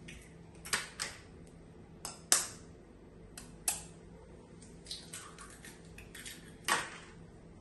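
Kitchen knife tapping eggshells to crack eggs over a ceramic mixing bowl: about ten sharp clicks, mostly in quick pairs every second or so, the loudest a little over two seconds in.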